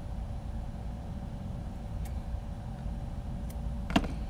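Steady low background hum with a couple of faint ticks, then one sharp click near the end as a pair of scissors is picked up off the work mat.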